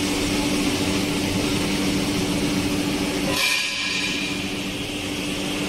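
Steady industrial machinery hum with a wide hiss. About three and a half seconds in, the low hum cuts out abruptly and a high whine takes over.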